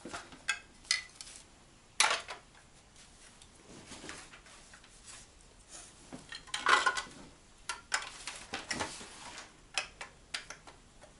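Small hard objects clinking and clattering as they are handled: a series of separate light knocks, loudest about two seconds in and in a short flurry near seven seconds.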